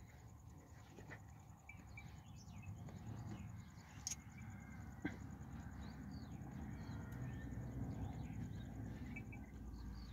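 Faint outdoor ambience: small birds chirping here and there over a steady low rumble, with two sharp clicks about four and five seconds in.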